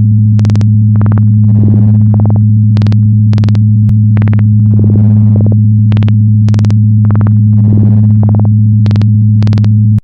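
Synthesized electronic sound effect: a loud, steady low hum held on one pitch, with sharp clicks about twice a second and a hissy swell every three seconds or so. It cuts off abruptly at the end.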